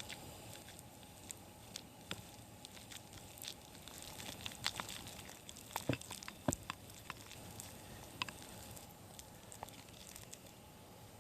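Wood campfire crackling: a steady low hiss with irregular small pops and snaps, busiest in the middle, with two louder pops about six seconds in.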